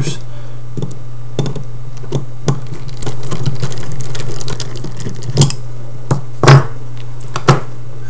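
Light clicks and taps of a small screwdriver and metal parts as the screws come out of an out-the-front knife's handle and the handle scale is lifted off and set down, with a few louder knocks in the second half.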